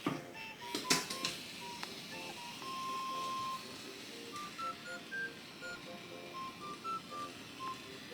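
Background music: a simple melody of short, plain beep-like notes played one at a time, with one longer held note, and a couple of sharp clicks in the first second.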